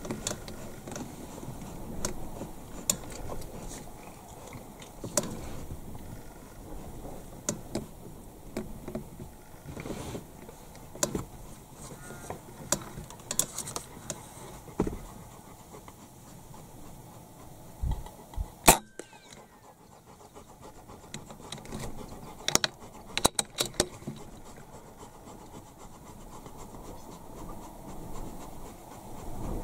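Small handling knocks and clicks over a low rustling background, then one sharp rifle shot about two-thirds of the way through, followed by a few lighter clicks. The shot is the one that drops a magpie on the ground.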